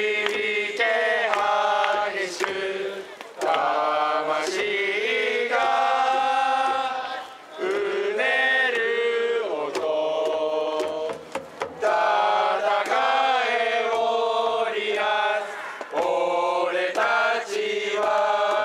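A Japanese pro baseball cheering section chanting a cheer song in unison, with trumpets carrying the melody. The song comes in held, stepwise phrases broken by short pauses, with a few sharp hits.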